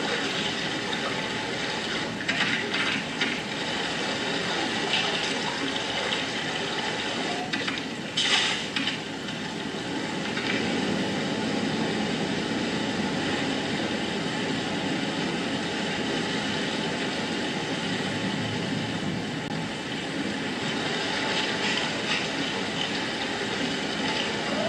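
Rushing river water from a wildlife film's soundtrack, played over loudspeakers in a hall: a steady rush, with a sudden brief louder burst about eight seconds in.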